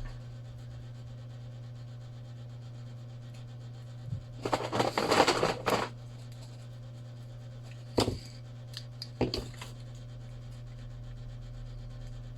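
Handling sounds from phone repair work: a second or so of rubbing and scraping a little before halfway, then two short clicks, over a steady low hum.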